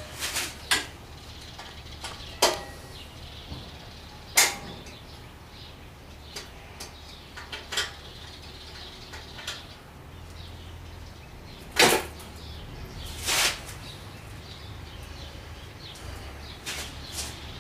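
Scattered metal clicks and clanks of hand tools working on a motorcycle's top rocker box bolts, about a dozen at irregular intervals. The sharpest comes about twelve seconds in and is followed by a short scrape.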